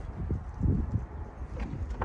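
Irregular footsteps on pavement over a low rumble on the microphone, with a couple of faint clicks.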